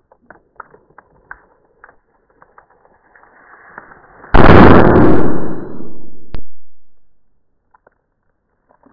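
A few small clicks, then a rising hiss and a sudden, very loud explosion blast about four seconds in that rumbles and dies away over about three seconds, with a sharp crack partway through the fade.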